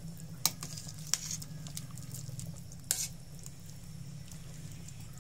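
Stainless steel ladle stirring soup in a steel pot, clinking sharply against the pot three times in the first three seconds, over a steady low hum.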